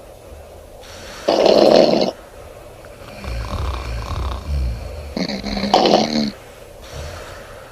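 A sleeping woman snoring loudly: two heavy snores about four seconds apart, the second with a rattling, fluttering tone, and quieter breathing between them.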